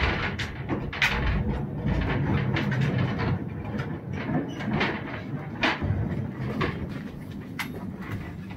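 Vintage Mancha electric mine locomotive and mine car rolling along narrow-gauge rail, the steel wheels knocking and clacking irregularly over the uneven track over a low rumble.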